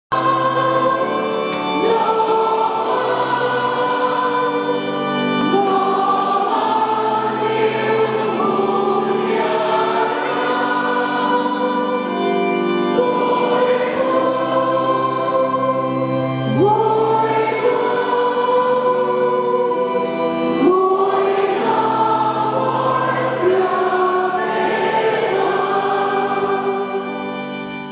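Church congregation and choir singing a hymn together, many voices of men and women holding long notes. The singing fades out at the very end.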